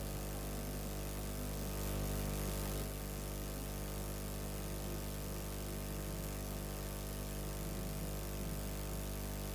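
A steady low hum with many even overtones that holds the same pitch throughout, with faint wavering traces of voices or music beneath it.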